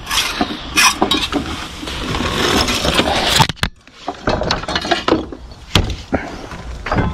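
Scraping, knocking and clinking of tools and materials being handled on wooden scaffold boards: a dense scraping clatter that stops abruptly about three and a half seconds in, then scattered knocks as a sabre saw is put down on the boards.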